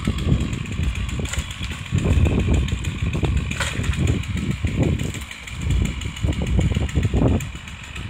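An engine running steadily at an even speed, with uneven gusts of wind rumbling on the microphone.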